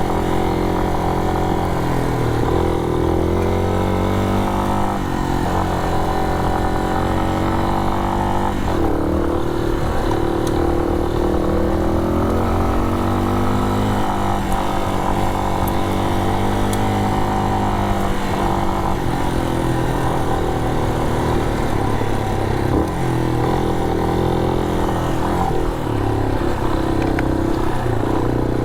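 Yamaha Serow 250's single-cylinder engine running on the move, its pitch rising and falling again and again as the rider opens and closes the throttle.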